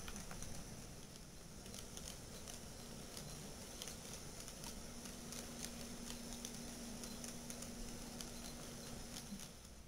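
HO scale model freight train rolling along sectional track: the cars' small wheels click irregularly over the rail joints. A low steady hum joins about halfway through and stops shortly before the end.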